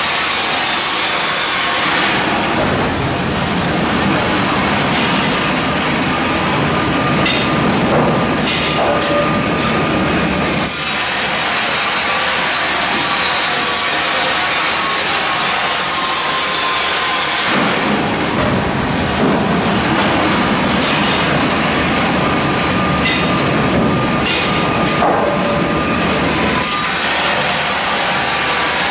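Mebor HTZ 1200 PLUS horizontal band sawmill sawing a softwood log, the band blade running through the wood. The sound turns heavier and lower for two stretches of about eight seconds each, starting about two seconds in and again just past halfway.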